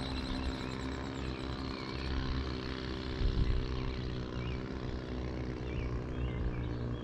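An engine's steady low drone, with a few bird chirps in the second half.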